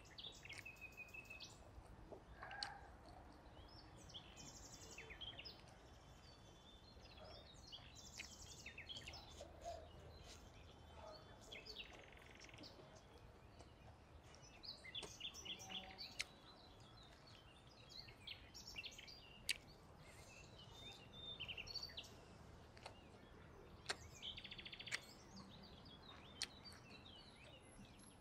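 Faint outdoor ambience with small birds chirping and trilling on and off, and a few scattered sharp clicks.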